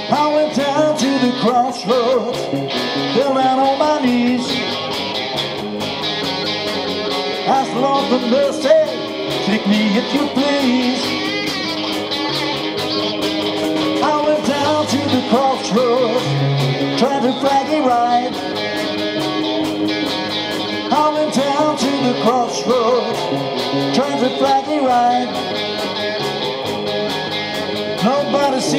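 Live rock band playing, with guitar prominent over a steady drum beat.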